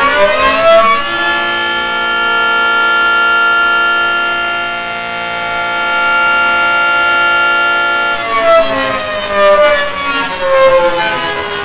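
Loud civil defense siren sounding the South Korean emergency alarm. Its many-toned wail rises over the first second, holds a steady pitch for about seven seconds, then winds down in a slow falling glide.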